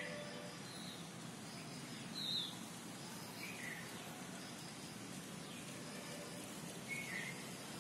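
Outdoor ambience with a bird giving a handful of short, falling chirps, irregularly spaced, the loudest about two seconds in, over a steady low background hum.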